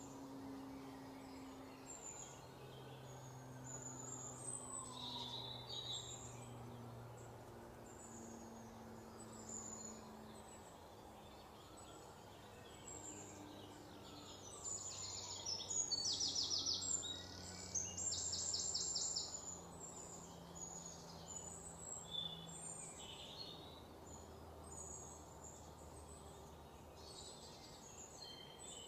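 Assorted wild birds chirping, with a louder, fast trilling call twice in the middle, over a faint low steady hum.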